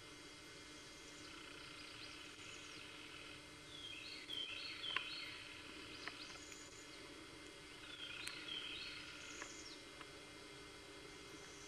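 A songbird singing faintly, repeating a short high-pitched phrase every two to three seconds.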